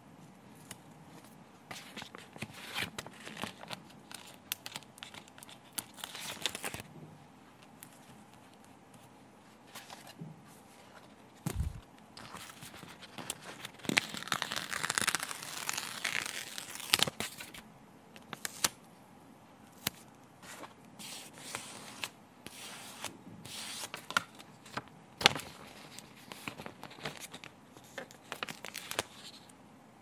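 Paper stickers being peeled from a glossy sticker sheet in short crackling rips, the sheet crinkling as it is bent and handled, with a denser stretch of crinkling about halfway through. There is a soft low thump a little before halfway.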